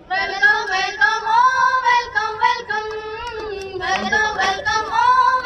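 A high, young voice singing a song without instruments, in held notes that bend in pitch, starting suddenly.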